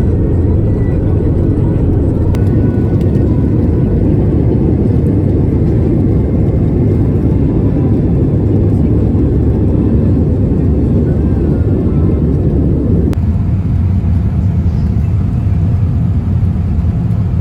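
Jet airliner cabin noise: a loud, steady low rumble of engines and airflow, its higher part dropping away suddenly about thirteen seconds in.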